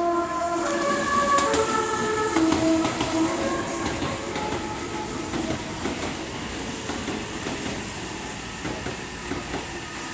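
Meitetsu 2200 series train's full musical horn playing its multi-note tune at a distinctive lower pitch, lasting about five seconds. After it, the train's running and wheel noise with rail clicks as it rolls into the platform.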